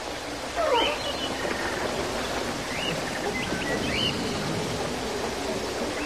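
A few short animal calls, chirp-like, over a steady rushing noise like running water. The loudest is a falling call about half a second in.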